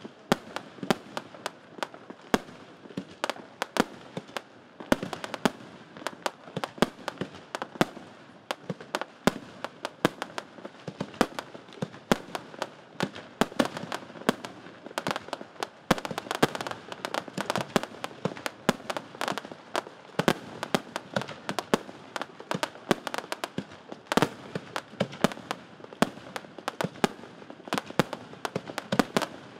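Aerial fireworks display: shells bursting in quick succession, several sharp bangs a second over a continuous crackle.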